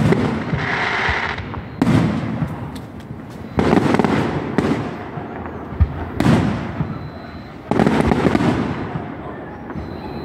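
Aerial firework shells bursting in the sky one after another, a bang roughly every one to two seconds, each trailing off in a rolling, echoing rumble. There are a couple of sharper single cracks among them.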